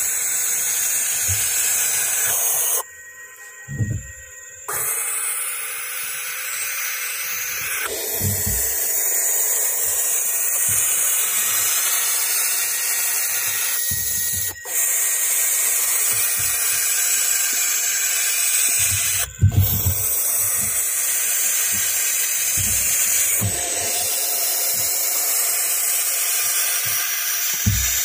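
Barn owl (Tyto alba) chicks in a nest box hissing steadily, with a pause of about two seconds near the start and two short breaks later.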